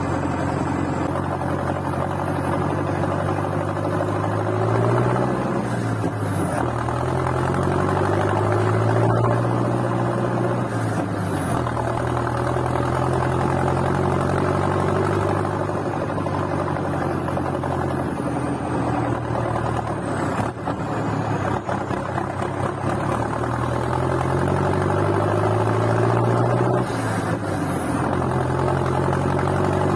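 Valtra BM125i tractor's diesel engine running through a straight, unmuffled exhaust, its revs rising and falling several times.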